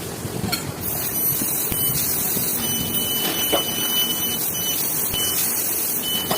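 CNC laser cutting machine cutting steel: a steady hiss with a thin, high whine that comes and goes.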